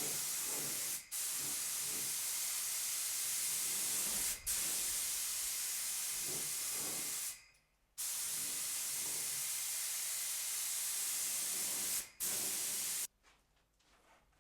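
HVLP paint spray gun hissing steadily as air and paint are sprayed, cut off briefly about a second in, at about four seconds, for most of a second past seven seconds, and again at about twelve seconds as the trigger is let off between passes; it stops just over a second before the end.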